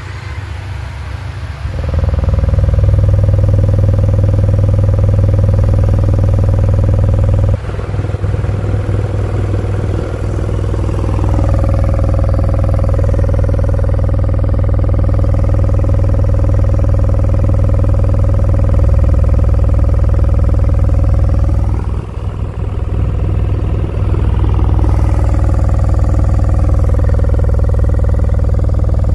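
JBL 1200-watt subwoofer, driven by a class D amplifier, playing a 20 Hz test tone with its cone moving hard. It is heard as a loud, steady buzzing drone that swells in about two seconds in and dips briefly twice.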